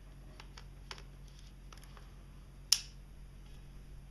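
Tokina 11-16mm lens being fitted to a Nikon D90's bayonet mount: a few faint handling clicks, then one sharp click about two-thirds of the way through as the lens locks into place.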